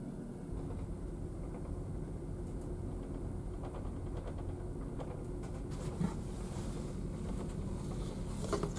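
Steady low rumble of a ferry under way, heard inside a passenger cabin, with a couple of small knocks, one about two-thirds of the way in and one near the end.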